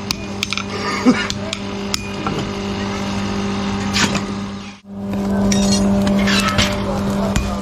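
A steady machine hum with scattered light metallic clicks and taps. The hum cuts out abruptly for a moment about five seconds in, then resumes.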